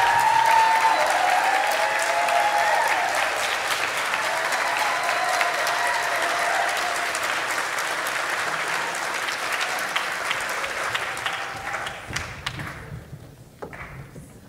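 Audience applauding after an a cappella quartet's performance, the clapping dying away near the end.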